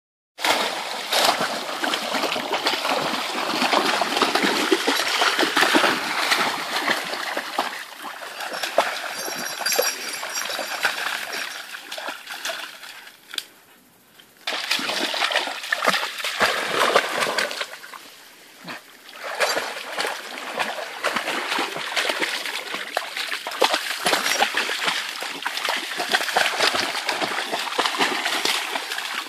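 Two Barbado da Terceira dogs wading and splashing through a shallow stream, water sloshing and splattering around their legs. The splashing dies away twice for a second or two near the middle.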